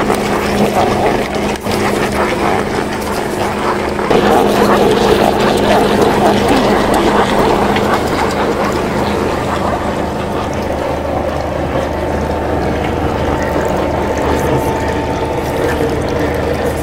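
Motorised iron chekku (rotary oil press) running steadily, its rotating pestle crunching dried coconut pieces in the bowl, with a constant machine hum under the crackle of breaking copra.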